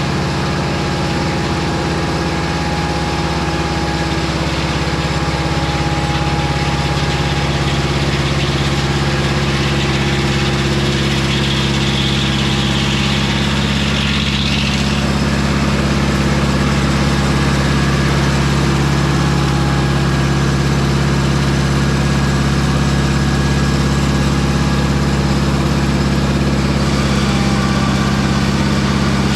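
Mobile Dimension circular-blade sawmill running steadily, its engine held at an even speed, with a brief higher-pitched hiss about halfway through.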